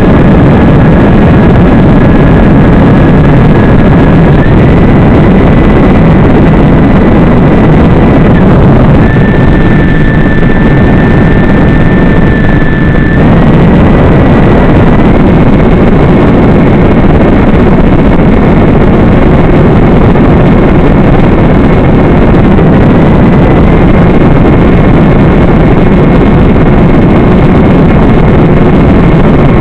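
FPV quadcopter motors buzzing steadily in flight, heard loud and hissy through the onboard camera's audio over the analog video link, with a thin whine that shifts pitch in small steps.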